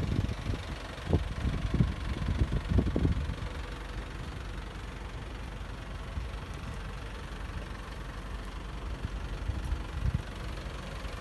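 Isuzu garbage compactor truck's diesel engine idling steadily, with a few low thumps in the first three seconds.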